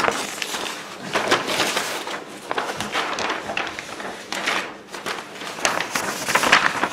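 A large paper drawing sheet being handled and folded, rustling and crinkling in uneven bursts.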